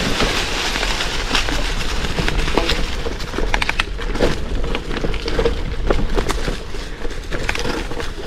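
Gravel bike on 650b × 43 Panaracer GravelKing tyres rolling over a rough gravel and dirt track: a steady crunching rush of tyres on loose ground, with many sharp clicks and snaps of stones and twigs under the wheels and the bike rattling.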